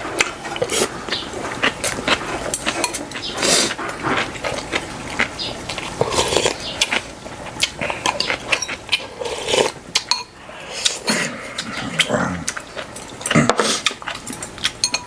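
People eating a meal: chewing and slurping, with spoons and chopsticks clicking against bowls and dishes.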